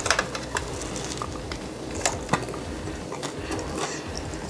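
A bite into a frosting-topped waffle cone, then close-up chewing, with the crisp cone crackling and crunching in short, sharp clicks; the loudest crunches come just after the start and again about two seconds in.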